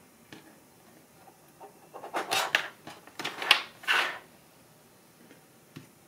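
Things being handled on a desk: a faint click near the start, then about two seconds in a quick run of five or six short rustling, scraping sounds.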